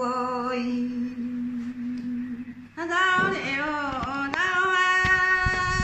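A woman singing a Dao folk song in long drawn-out notes without words: a low held note fades out about two and a half seconds in, and after a short break she starts a new phrase that slides in pitch and settles on a long, higher held note.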